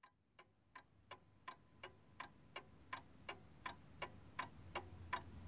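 A clock ticking steadily, about three ticks a second, growing louder as it fades in, over a faint low hum.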